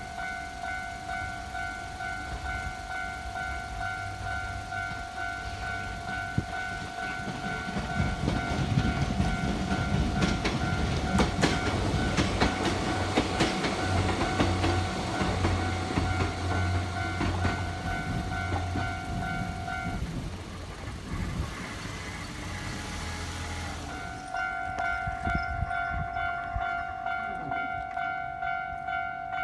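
Japanese level-crossing warning bell ringing in a steady electronic ding-ding while a train passes over the crossing, its wheels clattering over the rail joints. The bell stops about two-thirds of the way through, then starts ringing again a few seconds later, the sign of another train approaching.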